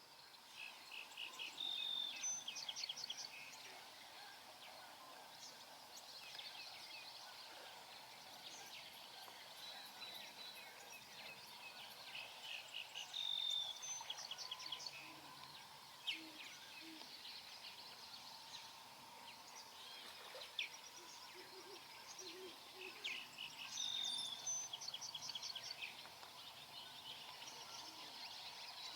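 Several marsh songbirds singing and calling over a steady background hiss. One bird repeats the same short song, a clear held note followed by a quick trill, three times about eleven seconds apart.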